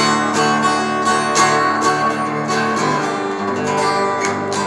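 Acoustic guitar strummed in a steady rhythm, about two strokes a second, with a chord change about three seconds in.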